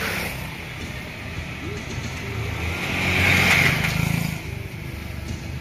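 Street traffic at the roadside, with a vehicle passing close and getting loudest about three to four seconds in.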